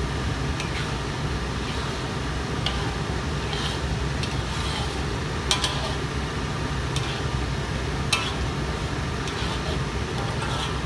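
Metal spatula stirring thick sambal in a metal wok, with irregular clinks and scrapes of the spatula against the pan over a steady low hum.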